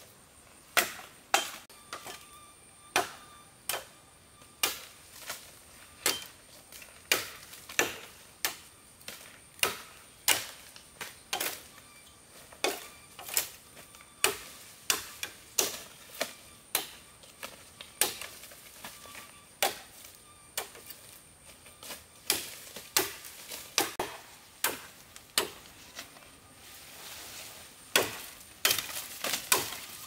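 Repeated sharp blows of a hand tool on wood or bamboo, about one to two a second with uneven spacing.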